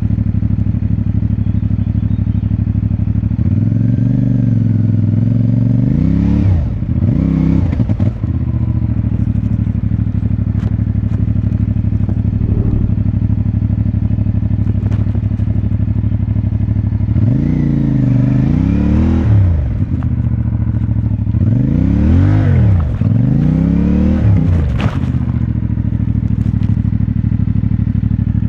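CFMoto 450MT parallel-twin engine idling, with two spells of short throttle blips, the revs rising and falling several times a few seconds in and again about two-thirds through, as the rider works the throttle on a muddy climb with no grip.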